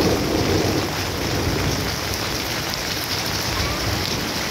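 Heavy rain pouring steadily onto garden plants and waterlogged ground, a dense even hiss that swells briefly louder at the start.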